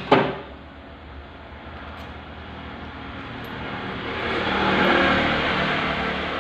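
A passing vehicle: a broad motor hum that swells to a peak about five seconds in and then fades. A couple of sharp knocks come right at the start.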